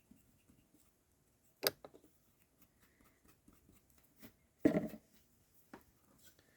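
A few small clicks and knocks from handling small objects at a workbench: one sharp click about two seconds in and a short cluster of knocks near five seconds in, with faint ticks between.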